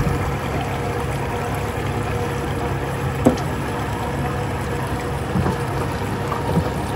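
Twin outboard motors running steadily at low speed, pushing the boat slowly through calm water. A brief sharp sound stands out about three seconds in.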